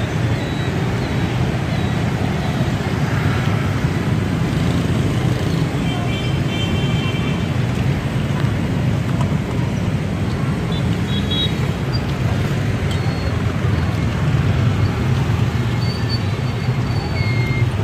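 Steady din of motorbike and scooter traffic on a busy city street.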